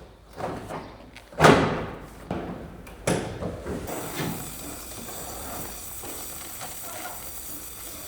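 A few knocks and thuds, the loudest about one and a half seconds in, followed by a steady hiss.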